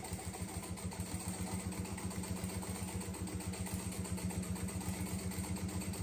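Jack industrial lockstitch sewing machine running steadily, stitching in a fast, even rhythm as it topstitches a quilted fabric edge.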